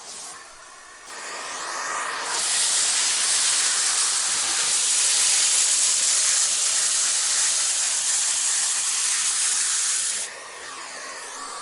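Vacuum cleaner running, a steady rush of airflow and suction hiss. It swells about two seconds in and falls back near the end, with faint pitch glides in the quieter stretches.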